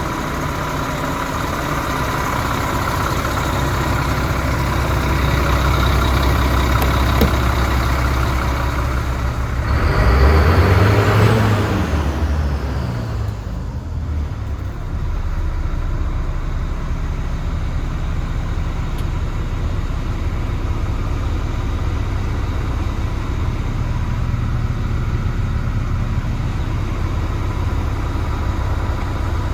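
DAF CF75.310 truck's six-cylinder diesel engine idling steadily, revved once briefly about ten seconds in, rising and falling in pitch, before settling back to idle.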